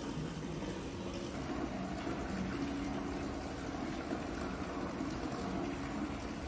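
Steady background noise: an even hiss with a faint low hum that comes and goes.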